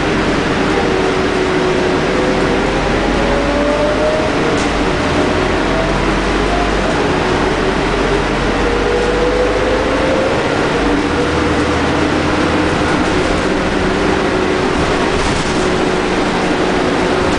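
Scania K310UD double-decker bus heard from inside the passenger saloon while driving: a steady engine and drivetrain rumble with road noise. Whining tones from the Scania DC9 engine and ZF Ecomat automatic gearbox slowly rise and shift in pitch as the bus changes speed.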